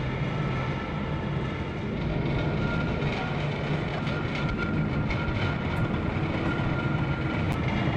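Roundhouse turntable turning with a small diesel shunter aboard: a steady low mechanical hum with a faint high whine over it.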